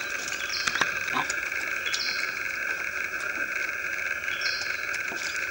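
A steady insect chorus droning in two high pitches, with a short high chirp that repeats every two to two and a half seconds and one sharp click about a second in.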